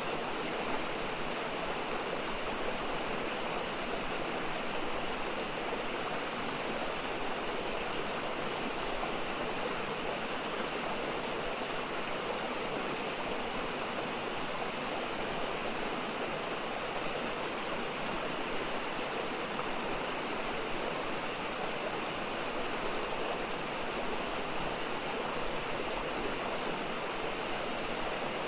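Mountain stream rushing steadily over rocks in a forest valley.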